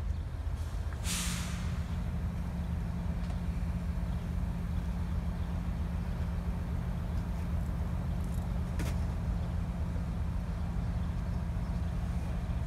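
GE Evolution-series (GEVO) diesel locomotive idling with a steady low rumble. A short hiss of air about a second in.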